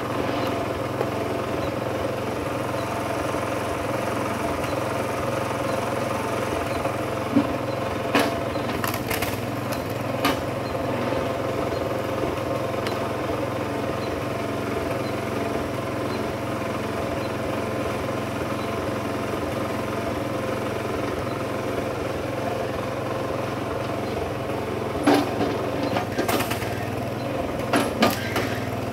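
Kinetic HD Super Split flywheel log splitter's small engine running steadily, with a few sharp knocks and cracks of wood being split and handled, several of them close together near the end.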